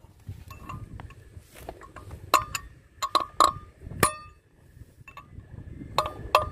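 Hammer blows on a steel drift, knocking a roller-bearing race out of a Kato HD512E excavator's final-drive sprocket hub. Sharp metal-on-metal strikes, each with a short ring, come at irregular intervals, the loudest between two and four seconds in and again near the end.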